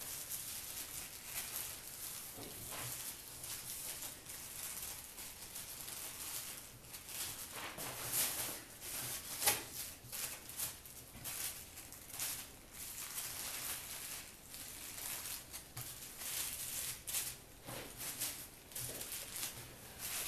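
Thin plastic trash bags rustling and crinkling as hands handle and smooth them, in uneven bursts with a sharper crackle about halfway through.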